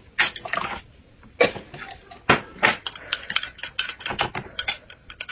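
Metal spoon clinking and scraping against a glass cup as a drink is scooped and stirred: a few sharp knocks early on, then a quick run of small clicks.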